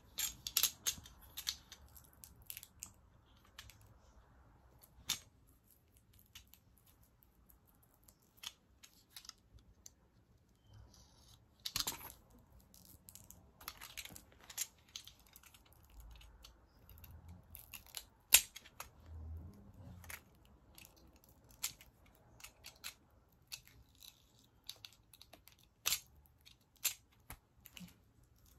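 Packaging of a small boxed postcard set being cut open and handled: a quick run of snips and clicks in the first few seconds, then scattered taps, scrapes and rustles of card and plastic wrap. One sharp click a little past the middle is the loudest.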